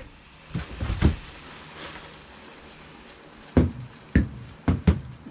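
Irregular knocks and clunks, a quick group of three about a second in, then four more near the end.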